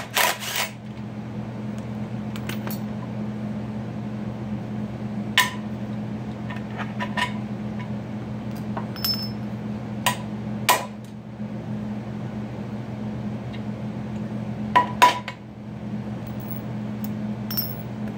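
Scattered sharp metal clinks of wrenches and loose steel bolts being handled, a dozen or so spread irregularly, the loudest right at the start and a close pair late on, over a steady low hum.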